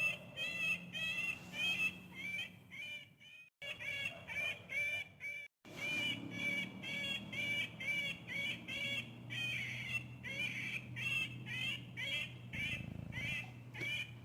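Woodpecker calling: a long run of short, harsh, repeated notes, about two a second. The sound cuts out briefly twice in the first six seconds.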